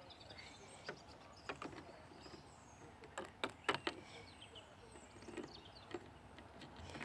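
Faint, scattered clicks and taps of small plastic toy figures being handled and set down, over quiet room tone, with a close cluster of taps about halfway through.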